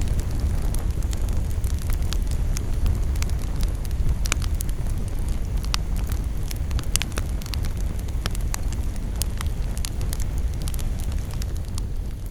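Campfire burning, wood crackling and popping in frequent, irregular sharp snaps over a steady low rumble.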